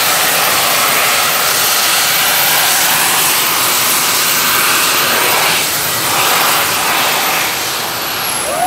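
Jet suit's small gas-turbine engines running with a loud, steady jet noise and a high whine. Near the end the whine drops in pitch and the noise eases as the engines throttle back for landing.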